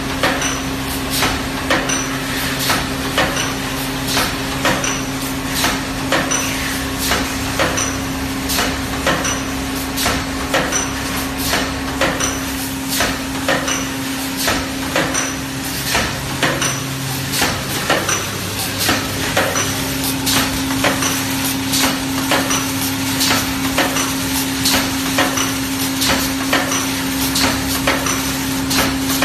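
Automatic aluminium foil container press running, stamping in a regular rhythm of about one knock every 0.8 seconds over a steady motor hum.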